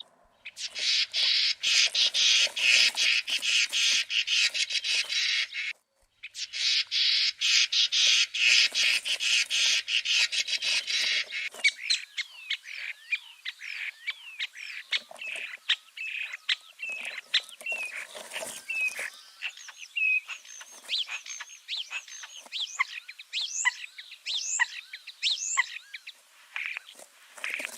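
Songbirds of a May woodland singing. For about eleven seconds there is a dense, rapid chatter, cut off once for a moment about six seconds in. After that comes a chorus of separate whistles and chirps from several birds.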